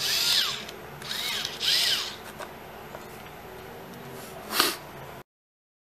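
Small cordless screwdriver motor run in three short bursts, its whine rising and falling with each pull of the trigger. It is powered by a 3.7 V laptop cell fitted in place of its original 2.4 V battery. A brief thump from handling follows near the end.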